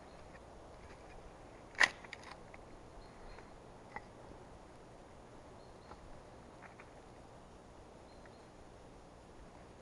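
A single sharp click about two seconds in, followed by a few faint ticks over a quiet, steady background.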